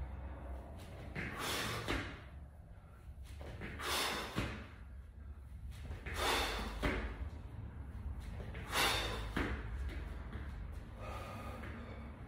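Heavy breathing of a man doing burpees: forceful exhalations about every two and a half seconds, four strong ones and a weaker one near the end, over a low steady hum.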